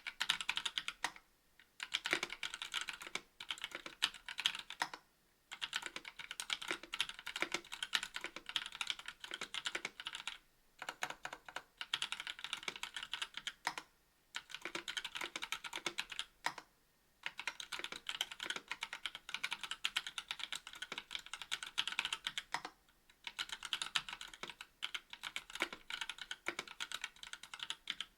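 Fast typing on a KBD67 V2 MKII mechanical keyboard with a brass plate, stock NovelKeys Cream linear switches and GMK keycaps. The keystrokes come in quick runs of clicks and clacks, broken by a few brief pauses.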